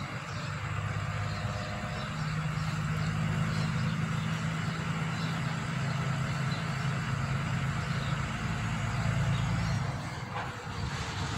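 A motor vehicle's engine running with a low steady hum that steps up in pitch about two seconds in and dies away near the end.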